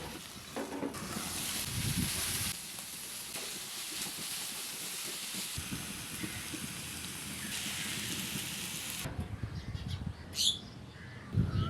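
Chichinga (snake gourd) with small shrimps frying in a pan, sizzling in waves that swell and fade. A short bird chirp comes near the end.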